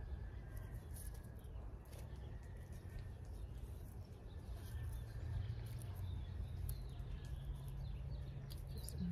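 Light rustling and ticking of hands working in loose soil, over a steady low outdoor rumble with a few faint bird chirps.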